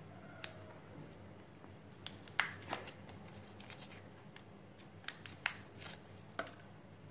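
Small wet and dry cleaning-wipe sachets handled between the fingers: a few short, crisp crinkles and clicks, the loudest about two and a half and five and a half seconds in.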